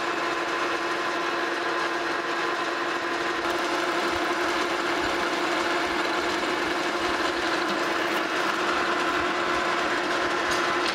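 Metal lathe running with the tool cutting along 1-inch bar stock, a light cut of about 10 thou: a steady machine hum with one constant mid-pitched tone over an even hiss.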